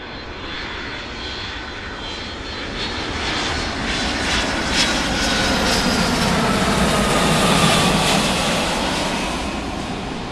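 Jet airliner flying overhead, a very loud rushing engine noise that swells over several seconds and then eases slightly, with a whine that falls in pitch through the middle.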